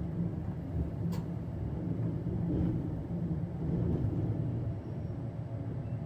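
Bernina Express train running, a steady low rumble heard from inside the carriage, with one sharp click about a second in.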